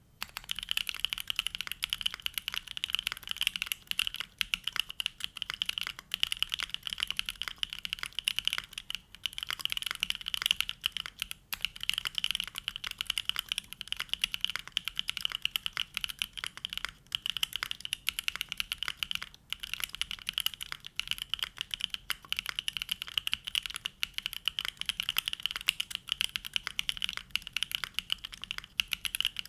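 Steady, fast typing on a Neo65 custom mechanical keyboard with a carbon-fibre plate, case foam, hand-lubed WS Onion switches and ABS doubleshot Cherry-profile keycaps: a dense run of keystroke clacks with a few short pauses.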